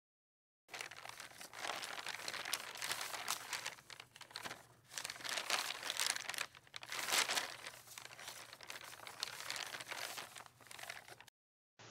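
Crinkling and rustling of a dark chocolate bar's wrapper being handled, in irregular bursts with short pauses; the sound starts just under a second in and cuts off shortly before the end.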